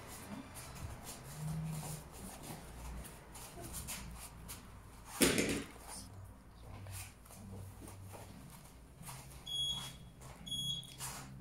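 Faint knocks and scuffs with one louder thump about five seconds in, then, near the end, short high beeps about a second apart: the countdown of a workout interval timer before a one-minute exercise round.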